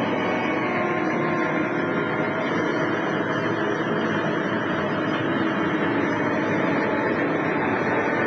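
The routine's accompanying music over the pool hall's loudspeakers, muffled and blurred into a steady wash of hall noise.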